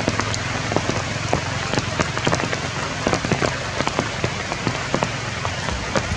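Steady rain, an even hiss broken by many sharp individual drops striking close by.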